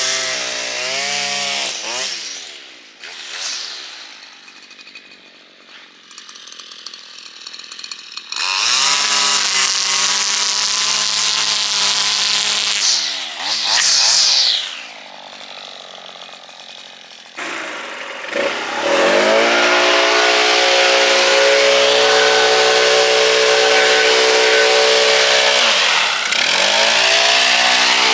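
A line trimmer cutting grass along a footpath edge, revving up and dropping back to a quiet idle several times. From about eighteen seconds in, a leaf blower runs steadily at full throttle, dipping briefly near the end.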